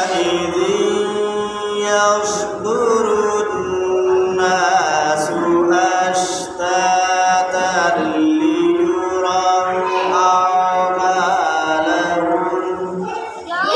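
A man's voice reciting the Quran in melodic tilawat style, with long held notes that bend and waver in pitch, broken by short pauses for breath.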